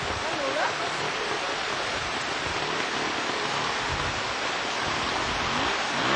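Steady rushing of a small forest creek's flowing water.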